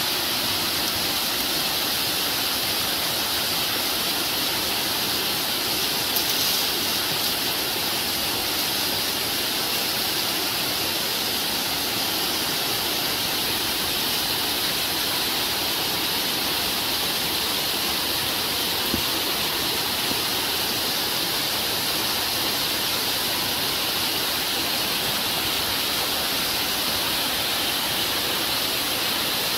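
Small waterfall pouring over a stone ledge and splashing down a bed of rocks: a steady rush of water.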